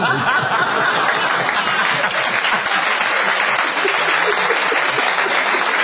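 A live audience applauding steadily, with some laughter at the start.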